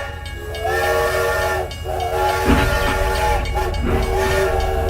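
Train horn sounding a chord of several tones in a series of blasts, some short and some held about a second and a half, over the low rumble of a train running.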